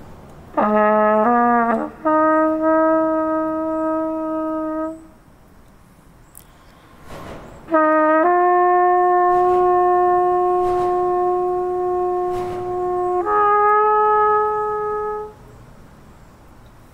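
Trumpet played in two slow phrases. Each opens with a few short notes and settles into long held notes, the second phrase held for about five seconds before stepping up to a higher note. The pause between the phrases is about three seconds long.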